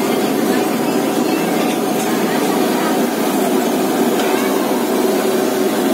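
Cooking-stove burner flame under a cooking pot: a steady rushing hiss with no breaks.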